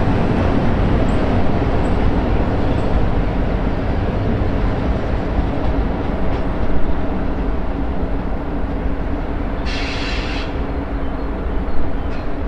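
Siemens Taurus Class 182 electric locomotive running with its double-deck regional train, a steady rumble with an even hum beneath it. About ten seconds in comes a brief high-pitched sound, just under a second long.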